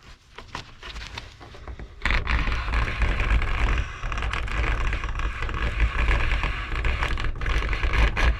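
Wire stripping machine with a freshly fitted blade, running as insulated copper wire is fed through it, the blade slitting the insulation: a steady grinding, scraping noise with a low rumble that starts about two seconds in. It sounds like a lot of cutting.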